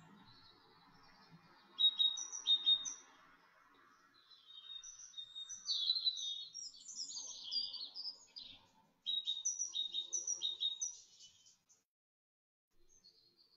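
A small songbird singing: quick high chirps and trills in short phrases, a few sharp notes about two seconds in, a longer run from about four and a half to nine seconds, and a rapid string of repeated chirps just after.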